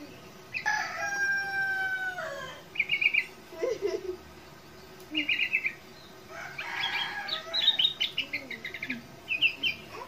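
A sooty-headed bulbul (kutilang) chirps in short, bright trilled phrases several times, with a longer run about seven to nine seconds in. A rooster crows once near the start, one long call that dips at its end.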